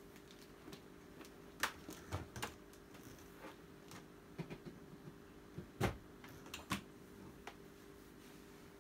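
Scattered light clicks and knocks of handling, the two loudest about two seconds and six seconds in, over a faint steady hum. The vacuum cleaner is not running.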